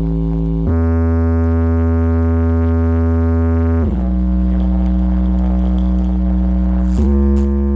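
Large sound system with twelve subwoofers playing music made of long, held bass notes that change pitch three times, about every three seconds. Quick hi-hat-like ticks come in near the end.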